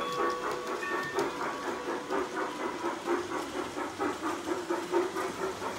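G scale model steam train running around the track, with a steady rhythmic chuffing and the clatter of its wheels on the rails.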